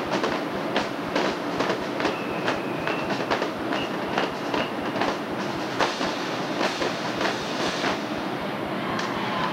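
Marching drum line of snare drums, tenor drums and bass drums playing a rhythmic cadence together, with sharp drum strikes several times a second.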